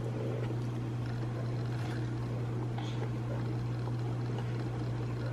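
Steady low hum with a faint background hiss, unchanging throughout.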